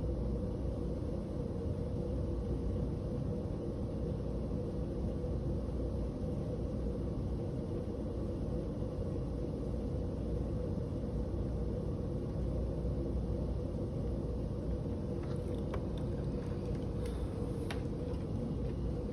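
Steady low background rumble and hum of the room, with a few faint clicks about fifteen to eighteen seconds in.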